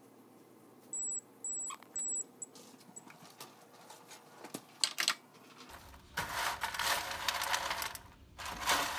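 Electronic oven timer beeping three short times, then knocks from the oven rack and metal baking pan as it is pulled out. From about six seconds in comes a loud rattle and scrape as dry pretzel sticks, nuts and Chex cereal are tossed with a spatula in the metal pan.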